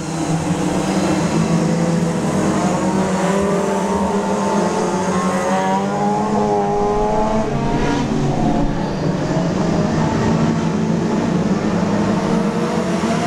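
Several small hatchback oval race cars running together, engines revving, with pitches rising and falling as the cars accelerate and lift.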